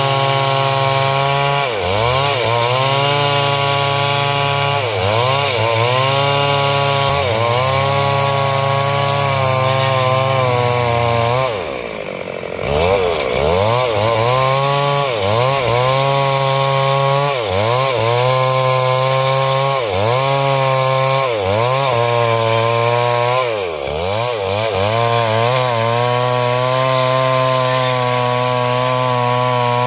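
Chainsaw cutting coconut wood, the engine held at high revs with its pitch dipping briefly every second or two as it bogs under load in the cut. About twelve seconds in, the revs drop away for about a second, then climb back up.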